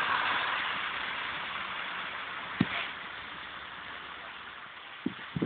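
Road traffic: a vehicle's engine and tyre noise, loudest at the start and fading steadily away. There is a single short knock about halfway through and a couple of soft thumps near the end.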